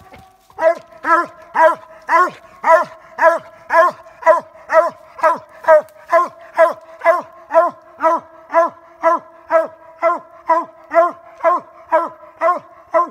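A coonhound barking in an even, steady rhythm of about two barks a second. This is the repeated bark a hound gives at a tree where it has a raccoon.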